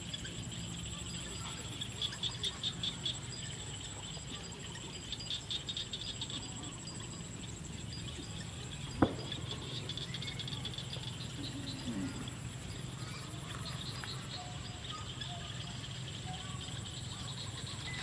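Insects calling in a rice field: a steady high-pitched buzz with two bursts of rapid pulsed chirping, over a low steady rumble. A single sharp click about nine seconds in.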